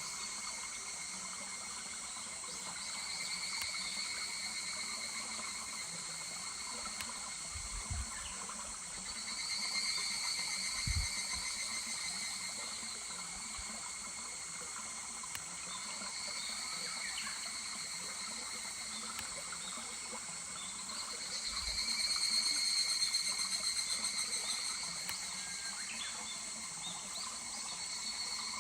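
Higurashi (evening cicadas) calling in overlapping waves: rapid rattling phrases swell and fade several times over the steady rush of a small stream. There are a couple of soft low thumps early on.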